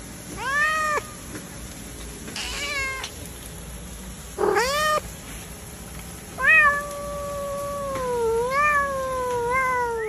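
Domestic cat meowing: three short meows, then one long drawn-out meow that wavers in pitch and lasts more than three seconds.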